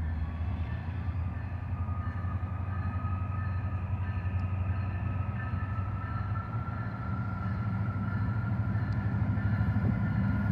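Diesel locomotives of an approaching freight train rumbling steadily, with a faint high tone that rises slightly in pitch and the rumble growing louder near the end as the train comes close.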